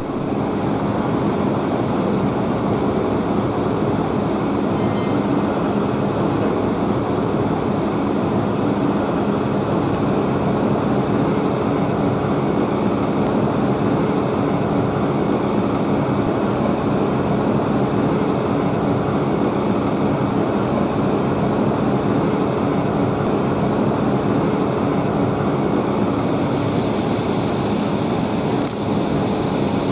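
Boeing 787-9 Dreamliner's twin jet engines at takeoff power: a steady roar with a low hum beneath it, through the takeoff roll and steep climb-out.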